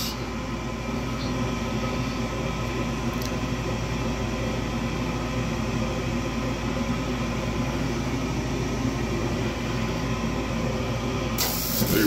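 Newly replaced inducer draft motor of a Magic-Pak gas furnace running with a steady hum, the pressure switch already closed. Near the end the gas burners light with a sudden hiss that carries on.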